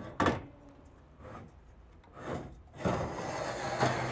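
A few light knocks, then from about three seconds in a steady scraping as a metal loading rail is slid out of its channel in the truck bed's built-in double floor, metal rubbing on metal.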